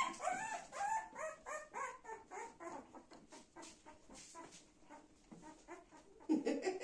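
Newborn golden retriever puppy crying: a run of short, rising squeals, about three a second, fading away over the first few seconds.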